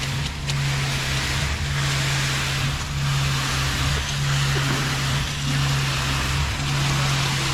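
Concrete mixer truck's engine running steadily during the pour: a low hum that swells and dips about once a second, under a steady rushing noise.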